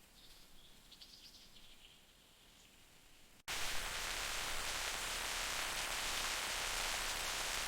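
A few faint high chirps over quiet forest ambience, then an abrupt cut about three and a half seconds in to loud, steady heavy rain.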